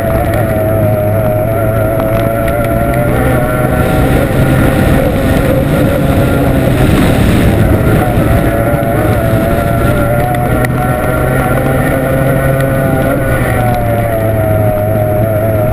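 Formula 1 tunnel boat's racing outboard engine running hard, heard on board. Its high note wavers slightly in pitch over a steady rushing noise, and between about five and eight seconds in the rush swells and the engine note blurs.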